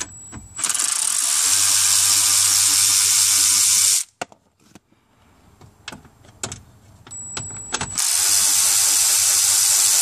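Cordless electric ratchet running in two bursts of about three seconds each, with a gap between, backing out two 7 mm screws. A thin high whine comes just before each run starts, and a few light clicks fall in the gap.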